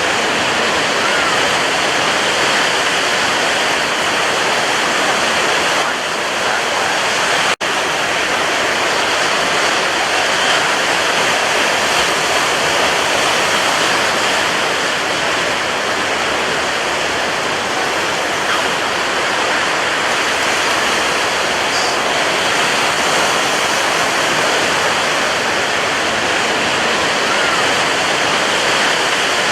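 Sea surf: a continuous, even rush of breaking waves, with a momentary break in the sound about seven and a half seconds in.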